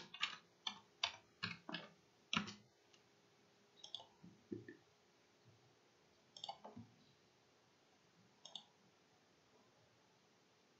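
Faint clicking of a computer keyboard and mouse: a quick run of about six clicks in the first two and a half seconds, then a few single clicks spaced a couple of seconds apart.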